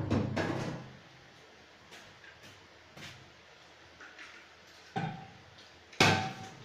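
Several sharp knocks and clatters a few seconds apart. The loudest comes about six seconds in, and it and the one just before it ring briefly.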